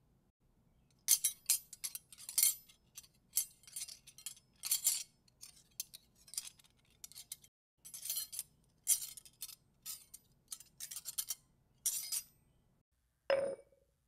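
Glass and tableware clinking: an irregular run of many sharp, bright little strikes, some in quick clusters. Near the end comes one separate short, lower-pitched sound.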